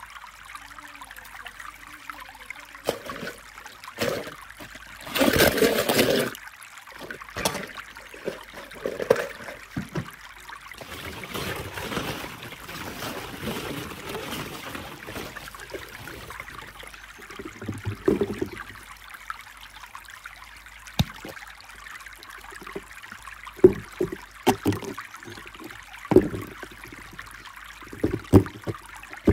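Hands rummaging through plastic ball-pit balls and crumbling kinetic sand: scattered knocks, clacks and rustles over a steady trickling hiss, loudest about five seconds in.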